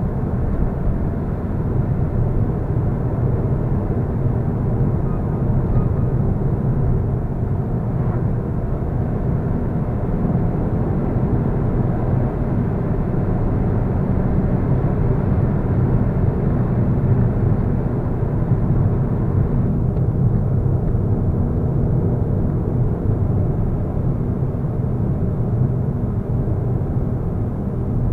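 Car driving at steady road speed, heard from inside the cabin: a constant low rumble of engine and tyre road noise with a faint engine hum.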